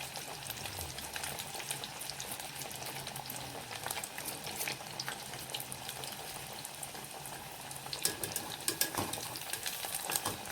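Breaded potato wedges deep-frying in hot oil: a steady sizzle full of fine crackles and pops, with a run of sharper crackles about eight seconds in.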